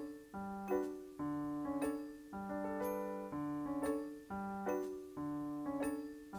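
Background music: a piano-like keyboard playing a slow, repeating chord pattern, with a new chord about every second.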